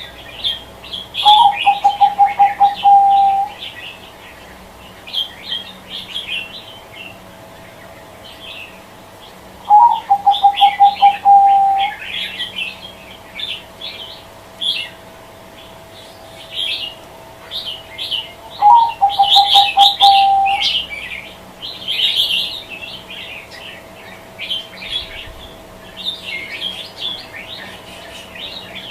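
Zebra dove (perkutut) cooing: three bouts of rapid repeated coos, each about two seconds long and opening on a higher note, about nine seconds apart. Small birds chirp high and continually.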